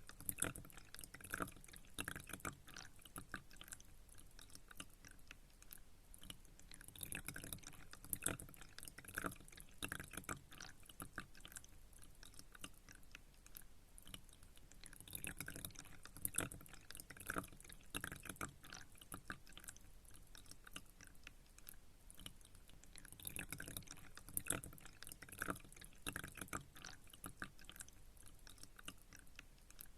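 Pond water trickling and dripping: a faint, steady patter of small drips and clicks that grows busier in clusters about every eight seconds.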